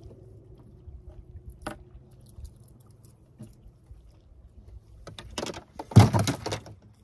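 A few scattered small clicks, then a short clatter of hard knocks and rattles about five seconds in, loudest about six seconds in.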